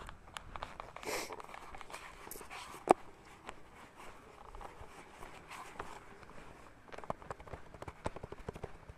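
Footsteps and small scuffs and taps in the dark, with a short rush of noise about a second in and one sharp knock about three seconds in.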